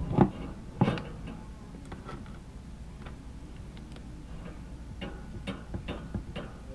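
Sharp clicks and knocks of dishwasher water inlet valve parts being handled and fitted back in place: loud knocks in the first second, then a run of lighter ticks near the end.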